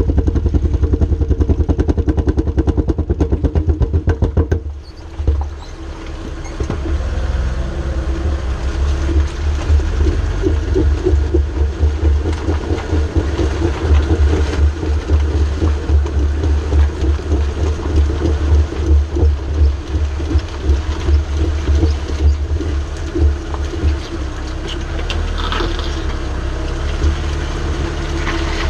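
Mercedes ML350 running with a bad driveshaft carrier bearing: a steady low drone with a rapid, even pulsing, the noise of the failed bearing. It drops briefly about five seconds in, then comes back as a steady drone with a wavering beat.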